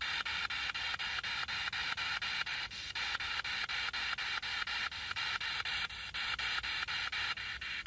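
Handheld spirit box sweeping through radio frequencies: a steady hiss of static cut by rapid, even clicks, about five a second, as it jumps from channel to channel.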